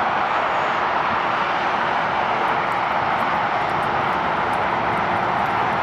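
Small radio-controlled model plane's motor and propeller running steadily.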